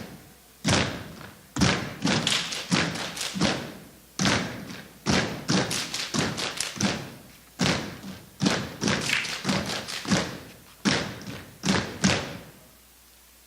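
Step team stepping: unison foot stomps and hand claps beaten out in a fast, syncopated rhythm, stopping about a second before the end.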